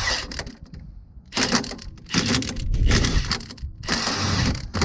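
Cordless impact wrench hammering in four or five short bursts on the alternator pulley of a Subaru BRZ/Toyota GR86, breaking the pulley loose.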